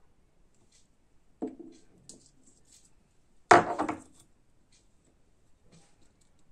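Knocks and light clicks of small lab items being handled and set down on a tabletop board: a smaller knock about a second and a half in and a louder one about three and a half seconds in.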